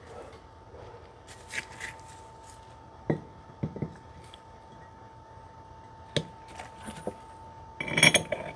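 Metal parts of a C3 Corvette lip-seal brake caliper being handled and fitted together: a few sharp knocks and clicks, the loudest about three seconds in, with a quick cluster of clinks near the end.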